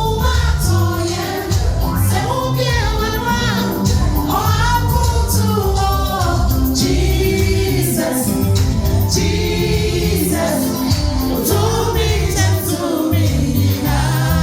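Gospel song performed live: several voices singing together over a band with a prominent bass line and a steady drum beat.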